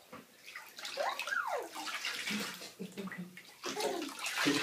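Bathwater splashing and sloshing in a bathtub as a hand swishes through it, with a louder splash near the end. About a second in, a baby gives a short vocal squeal that rises and then falls in pitch.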